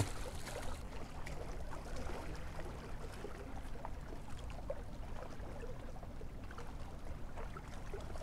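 Small waves lapping against shoreline rocks, over a steady low rumble.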